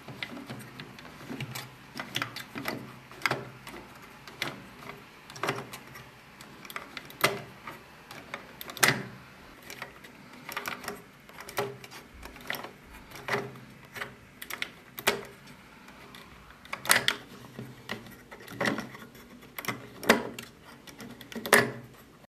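Hand-cranked 3D-printed plastic polar bear and seal automaton running: its plastic gears and cams clack with sharp clicks and knocks, roughly once a second, some in quick pairs.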